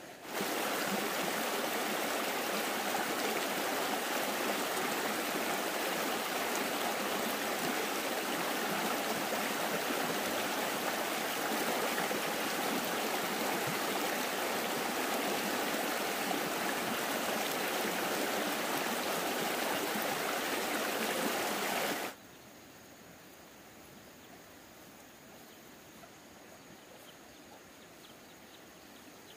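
Steady rush of running water, like a stream. It starts suddenly and cuts off sharply about 22 seconds in, leaving only a faint background hiss.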